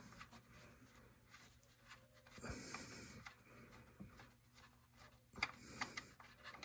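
Near silence with a few faint clicks and rustles from hands working the oil drain plug out of the oil pan, around two and a half seconds in and again near six seconds.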